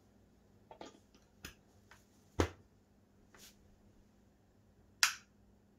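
Sharp plastic clicks and knocks as a power adapter plug is worked into an extension-reel socket, six in all, the loudest about two and a half seconds in and another near the end.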